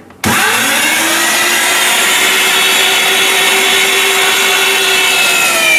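Electric meat grinder switched on and running steadily as it grinds pork with onion and celery. It starts suddenly, its pitch rising for a moment as the motor spins up, and the pitch drops slightly near the end.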